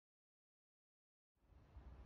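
Near silence, then faint room tone fading in about a second and a half in.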